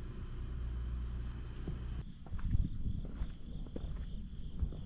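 Steady low hum for about two seconds, then an abrupt change to insects chirping in a regular pulse about three times a second over a continuous high buzz, with low rumbling and a few soft knocks.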